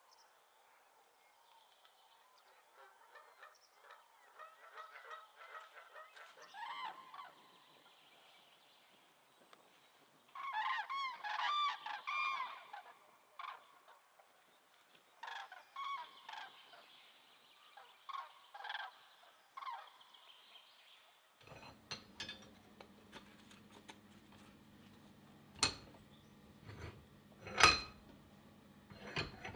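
A flock of migrating large birds calling as they fly over, many overlapping short calls that swell loudest a third of the way in. About three-quarters through the birds stop and sharp knocks and clicks follow over a low steady hum, the loudest two knocks near the end.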